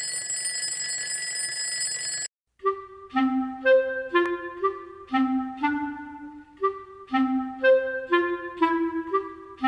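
Alarm-clock bell ringing steadily, cutting off suddenly about two seconds in. After a brief gap, background music starts: a melody of separate notes on a clarinet-like woodwind, about two notes a second.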